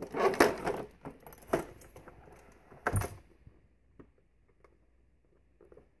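Handling noises as the Beam RugMaster Plus powerhead, which is not running, is turned over: rustling and clattering of its plastic housing in the first second and again briefly, a sharp knock about three seconds in, then a few faint clicks.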